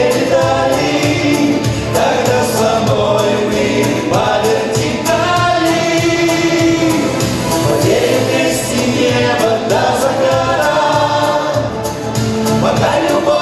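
A man and a woman singing a pop duet through handheld microphones over a backing track with a steady beat.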